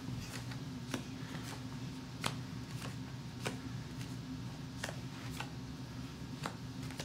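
Paper flashcards being dealt one by one off a deck and laid down in a row, each card giving a short, sharp click, at irregular intervals about once a second.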